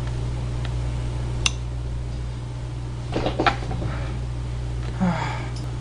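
Steady low electrical hum, with a sharp click about one and a half seconds in and a few light knocks on the tabletop around three seconds in. A brief voiced sound near the end.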